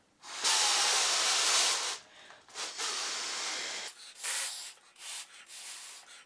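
Breath blown through a straw into a foil balloon's valve: one long, loud blow of about a second and a half, a second softer blow, then several short puffs.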